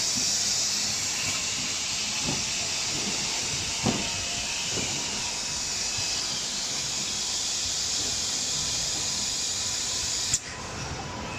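Automatic snack cartoning machine running with a steady hiss of compressed air from its pneumatics, a few light knocks a few seconds in, and a sharp click near the end, where the hiss cuts off.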